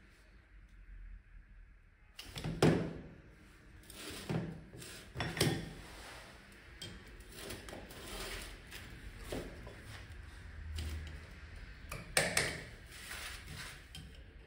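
Metal parts of a Honda PCX 125's CVT transmission being handled and fitted by hand: a string of knocks and clicks. The loudest comes about two and a half seconds in, others around four, five and twelve seconds in.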